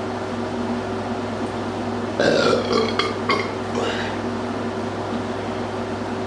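A person burps loudly about two seconds in, a burp brought up by drinking a large amount of soda. It is strongest at the start and breaks into a few shorter pulses over the next couple of seconds, over a steady low hum.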